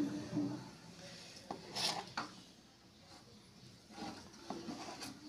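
A knife slicing through a soft baked sponge cake, with faint scraping and a few light ticks as the blade meets the surface beneath.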